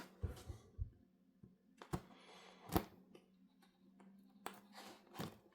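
Packaging being handled as a parcel is opened: a few scattered small clicks and taps with quiet gaps between them.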